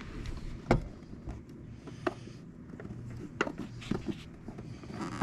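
A few scattered sharp clicks and knocks from hands handling parts and tools during wiring work on a truck, the loudest about a second in, over a low steady hum.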